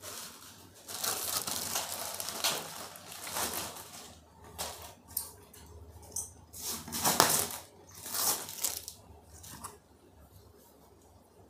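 Plastic packaging crinkling and rustling in uneven bursts as it is handled and pulled off, loudest about seven seconds in.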